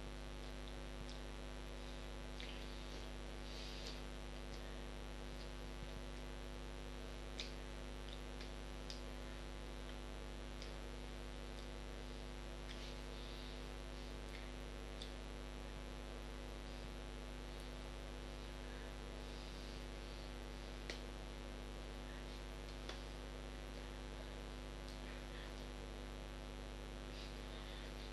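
Steady electrical mains hum with a constant hiss, the recording's own background noise, with faint scattered clicks and rustles now and then.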